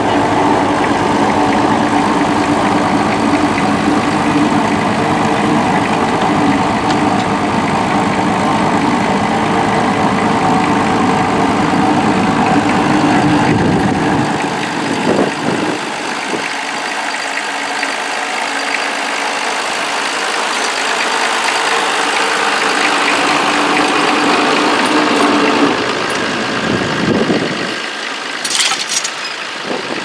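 Vintage tractor engine running steadily as it pulls a trailed plough, a constant engine hum. About halfway through the sound turns thinner and fainter, with less low rumble.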